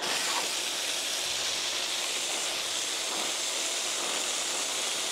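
Water gushing steadily from the opened tap of a concrete community water point, a continuous hiss.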